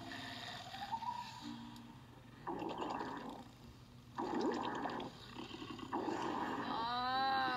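Animated film soundtrack playing through a laptop's small speakers: several rustling, noisy sound effects of about a second each, then a high, arching call near the end.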